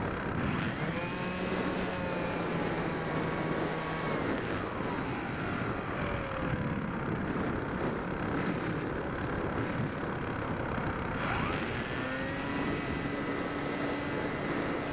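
Bixler RC plane's electric motor and propeller heard from on board in flight: the whine rises as the throttle opens about half a second in, falls away around five seconds, and climbs again near twelve seconds, over a steady rush of air.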